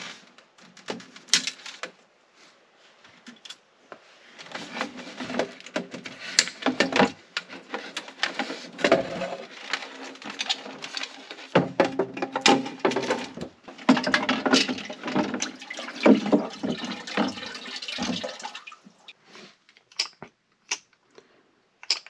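Water sloshing, splashing and dripping as a submersible sink pump is lifted out of its water-filled plastic basin, mixed with irregular knocks and clatter from the pump and basin. It dies away near the end to a few scattered clicks.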